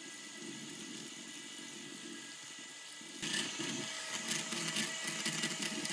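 Electric hand mixer with twin wire beaters running at low speed, whipping homemade cream in a glass bowl: a steady whine that grows louder and harsher about three seconds in.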